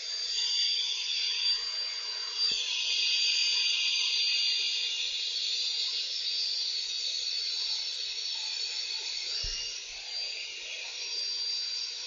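Electric kitchen mixer running steadily at full speed: a high-pitched motor whine.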